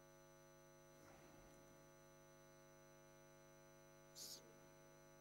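Near silence with a steady electrical mains hum, and a short faint hiss about four seconds in.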